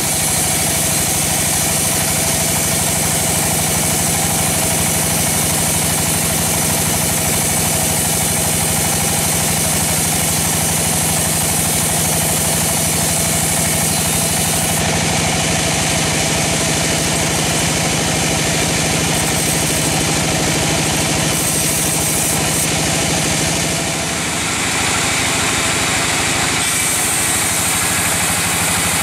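Large band sawmill running, its blade cutting lengthwise through a teak log: a steady, loud machine noise with a brief dip in level about 24 seconds in.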